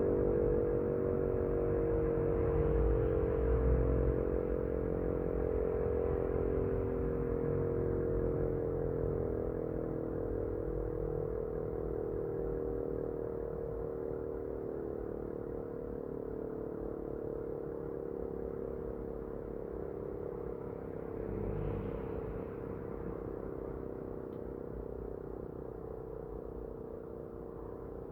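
Elektror S2 electric motor siren sounding a steady tone during a test alarm, slowly getting quieter.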